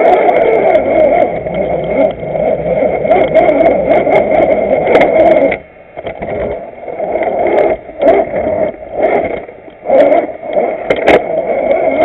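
1/6-scale RC Willys jeep driving over rock, its motor and drivetrain running loudly with a thin steady whine, cutting out briefly about six seconds in and then coming back in surges. Scattered clicks and knocks from the jeep working over the rocks.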